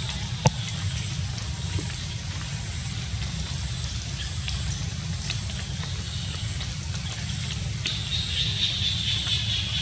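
Steady outdoor background noise: a low rumble under a thin high hiss that grows a little louder near the end, with one sharp click about half a second in.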